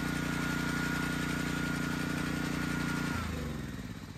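Honda engine of a gas pressure washer running steadily and evenly at its governed speed after a carburetor cleaning, with no stumbling; about three seconds in it is shut off and winds down.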